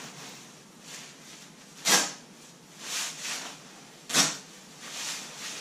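Pertex nylon shell of a pile-lined smock rustling and swishing as it is pulled and adjusted on the body, with two sharp swishes about two and four seconds in.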